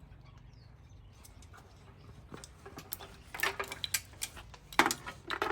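Small scattered clicks and taps of a plastic relay and push-pin fastener being handled and positioned on a truck's front-end panel, over a low steady hum. The first couple of seconds are quiet, and the sharpest click comes near the end.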